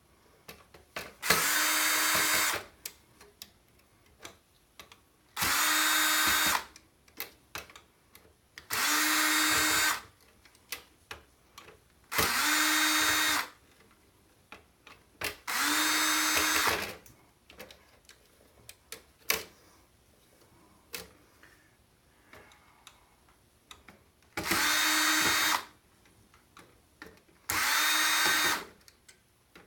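Cordless power drill-driver backing screws out of a computer's front-panel circuit board: seven short runs of about a second each at a steady pitch, with small clicks of screws and handling in between.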